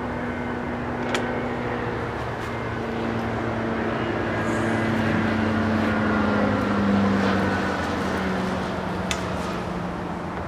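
A steady engine hum whose pitch drifts slowly. It grows a little louder toward the middle and eases off near the end, with a few light clicks.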